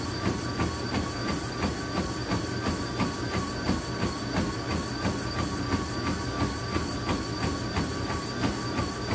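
Running footfalls pounding a treadmill belt at a fast pace, about three strikes a second, over the treadmill motor's steady hum and whine.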